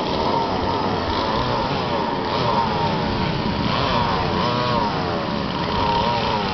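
Several racing go-kart engines running hard together, their overlapping pitches rising and falling as the drivers get on and off the throttle.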